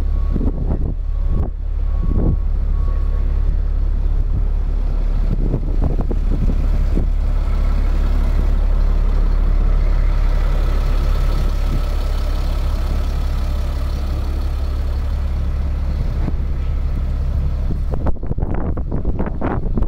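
The diesel engine of a 2002 Freightliner FL60 boom truck idling with a steady low hum. Wind buffets the microphone near the start and again near the end.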